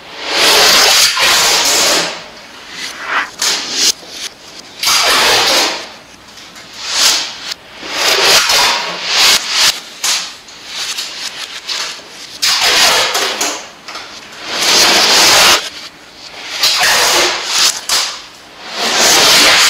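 Adhesive tape being pulled off the roll in repeated loud ripping pulls, each about a second long, about eight in all, with rustling and handling of the tape in between.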